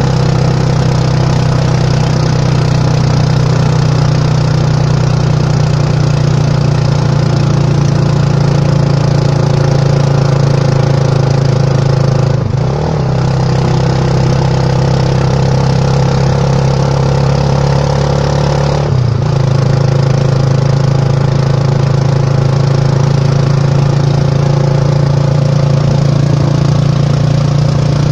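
Motorcycle engine of a motorized tricycle running steadily under way, heard from inside the sidecar. Its note dips and shifts briefly twice, near the middle and about two-thirds through.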